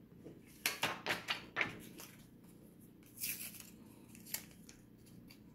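Small foil-and-paper wipe sachet crinkling and being torn open: a run of short crackly rips in the first two seconds, another about three seconds in, and a light click a little later.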